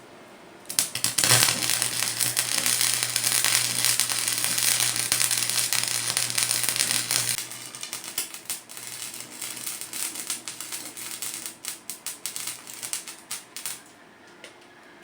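Welding arc crackling steadily for about seven seconds over a low electrical hum, then quieter, sputtering crackles and ticks that stop shortly before the end.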